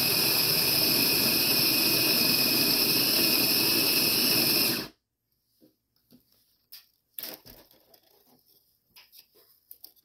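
Sboly electric conical burr coffee grinder running on its fine setting: a steady motor whir with a constant high tone, cutting off suddenly about five seconds in. A few faint clicks follow.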